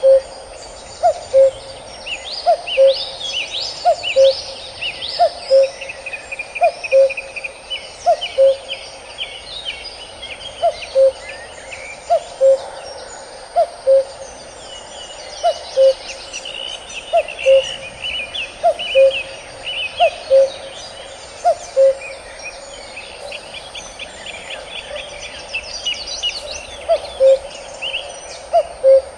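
Male common cuckoo repeating its falling two-note "cu-coo" call, one pair about every second and a half. Other birds chirp at a higher pitch behind it.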